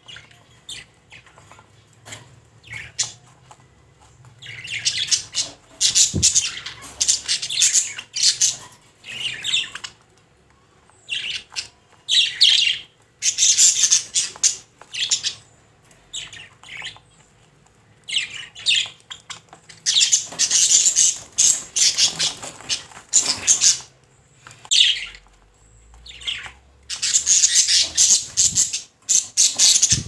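Budgerigar chattering: runs of quick, high chirps and squawks lasting several seconds each, with short pauses between them.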